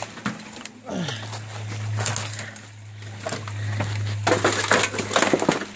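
Rustling and crunching in brush and dry debris, building to a rapid run of crackles and snaps in the last second and a half.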